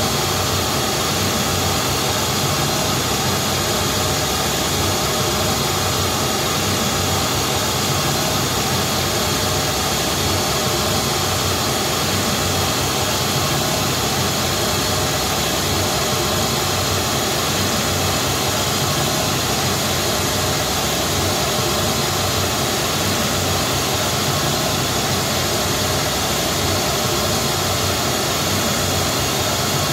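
Steady pink-noise test signal played through JBL SRX PA loudspeakers for a Smaart acoustic measurement, an even, unbroken hiss covering lows to highs.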